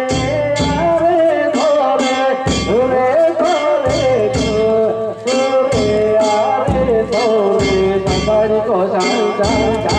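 Festival float music: regular drum and bell strikes, about two or three a second, under a wavering melody line.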